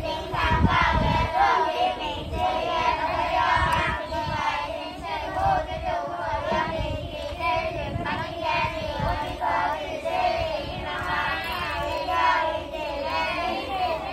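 A group of children singing together in unison, voices continuous with a steady melodic line.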